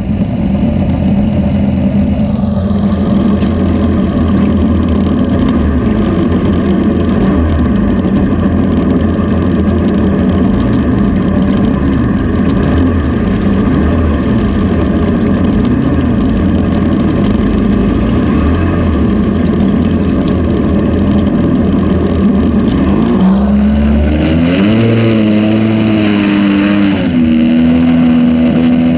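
Outboard jet motor on a jon boat running steadily at speed over the water. About 23 seconds in, a second jet boat's engine comes in close alongside, its pitch rising and wavering, with a hiss of water spray from its wake.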